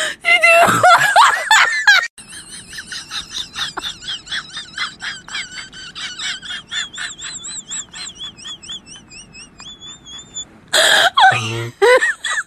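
A man's loud vocal outburst, then several seconds of quieter, high-pitched rhythmic laughter in short repeated wavering notes, and another loud outburst of voice near the end.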